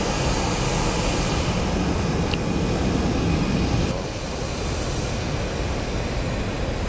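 Steady jet aircraft engine noise heard across an airport apron, a wide rumble and hiss, a little quieter from about four seconds in.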